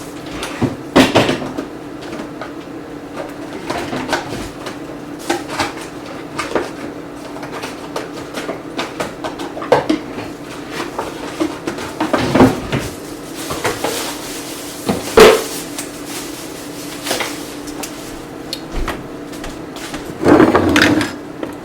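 Hand potato masher knocking and clattering irregularly against the blender jar as it mashes the sweet potato mixture, over a steady low hum.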